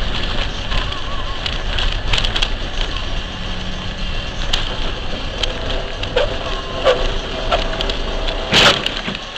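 Steady road and engine noise heard inside a moving car, with scattered light clicks and knocks and one louder sharp sound near the end.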